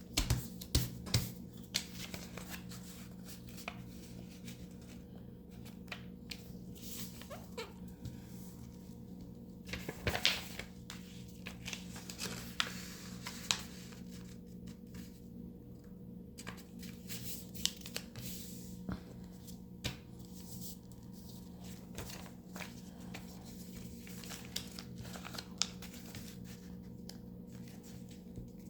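Paper being handled and folded by hand: scattered rustles, creases and light taps, a few louder ones near the start and about ten seconds in, over a steady low electrical hum.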